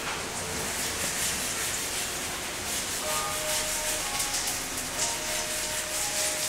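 Sanding block rubbed back and forth over the deck of a stand-up paddleboard, a steady scratchy rubbing, with faint sustained tones underneath from about halfway through.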